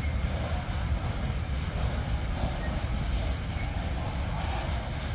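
Steady low rumble of a freight train pulling out, its loaded grain hopper wagons rolling over the tracks behind a Taurus electric locomotive.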